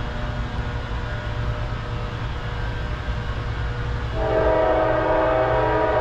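Multi-chime air horn of an approaching Norfolk Southern freight locomotive, a rebuilt Dash 9-44CW (AC44C6M), over a steady low rumble. The horn is faint at first, then a loud horn chord begins about four seconds in and is held.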